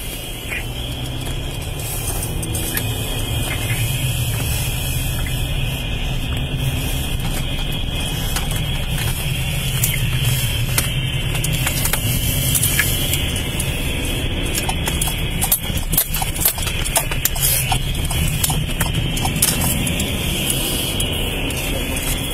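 Steady low rumble of a car running, heard from inside the cabin, growing a little louder over the first several seconds, with scattered clicks and knocks.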